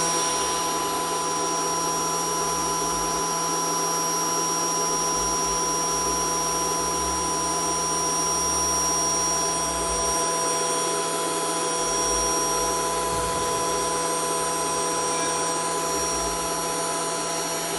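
4-axis CNC machine's spindle running during aluminium milling: a steady whir and hiss over a low hum, holding an even level throughout.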